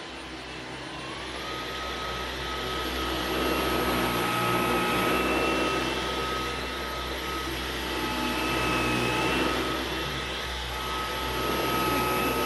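Dyson V11 cordless stick vacuum running: a steady motor whine over a rush of suction air. The whine steps up in pitch about a second in and gets louder over the next few seconds, then holds steady.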